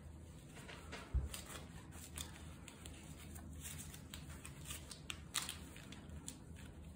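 Faint rustling and small clicks of a cotton shirt being handled in nitrile gloves as rubber bands are wound around the folded fabric, with a low thump about a second in and a sharper click past the middle.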